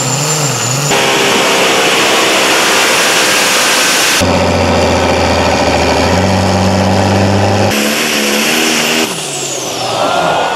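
Pulling tractors' engines running hard under load, heard as a run of short clips that cut abruptly from one engine sound to the next every one to four seconds; in one clip a steady engine note steps up in pitch partway through. Near the end the sound drops and gets quieter.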